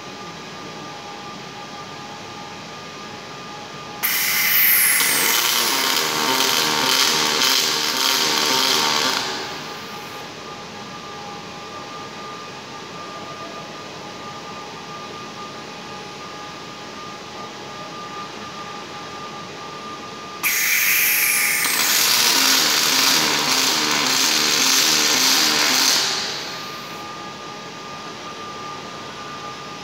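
Robotic MIG welding arc, struck twice: a loud, harsh hiss starts suddenly about four seconds in and runs about five seconds, then again about twenty seconds in for another five seconds. Between the welds a steady machine hum continues.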